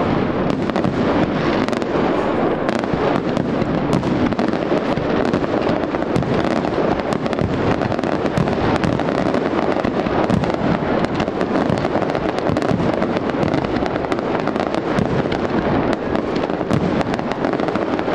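Fireworks display: a dense, continuous barrage of shell bursts and crackling, with no let-up.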